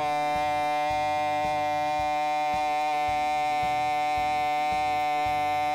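A man's voice holding one long, steady vowel on a single pitch: the open 'aaa' of a sustained 'ma' in a voice warm-up. The recording is audibly distorted.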